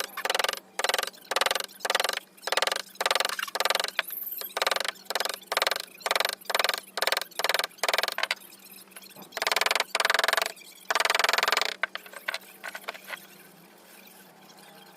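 Hand tool scraping across wood in rapid back-and-forth strokes, about three a second, then two longer strokes near the end before it stops. A faint steady hum sits underneath.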